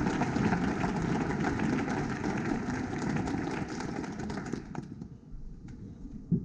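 Audience applauding, dense clapping that dies away about five seconds in, leaving scattered claps and hall noise, with a single sharp thump near the end.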